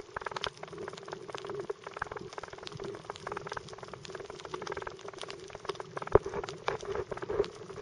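Dense crackling of many small clicks and pops heard underwater over a coral reef, with a steady low hum beneath. One louder click comes about six seconds in.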